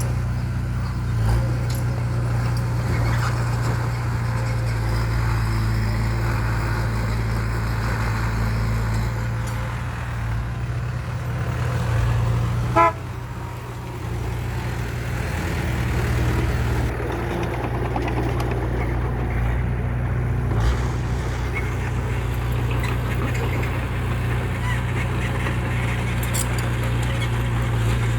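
Heavy vehicle engine running steadily at a low, even hum, with one short horn toot about halfway through.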